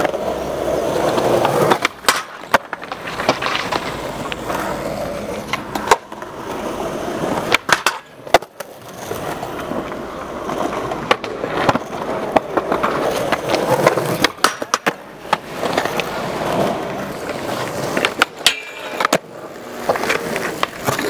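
Skateboard wheels rolling over concrete with a steady rumble, broken by several sharp clacks of the boards hitting the ground.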